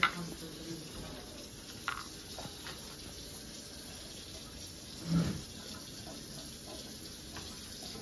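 A steady low hiss with a few light knocks and taps of paint pots and brushes on a stone counter, the loudest about five seconds in.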